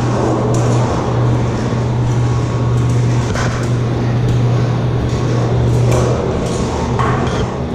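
A steady low machine hum inside a wind turbine tower, with scattered metallic knocks and clinks from climbing the ladder.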